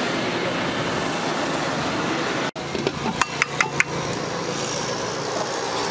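Steady road traffic noise from passing scooters and cars, which cuts off abruptly about two and a half seconds in. A quick run of about five sharp taps follows at the dosa griddle, over a steady background hum.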